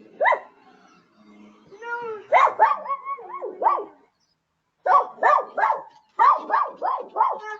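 A dog barking in short runs: a single bark at the start, a cluster of barks a couple of seconds in, then a quick run of about eight barks, roughly three a second.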